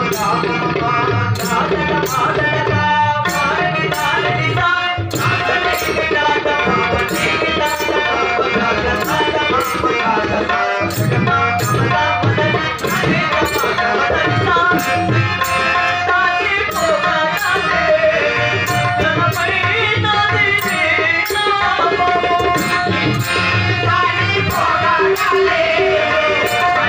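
Bhajan music: a harmonium and a tabla pair keeping an even beat, with singing over them.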